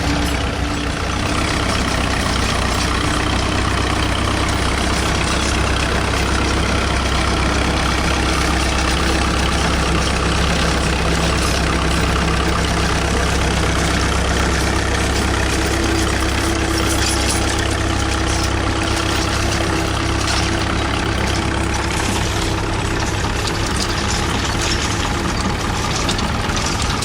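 Vintage tractor engine idling steadily.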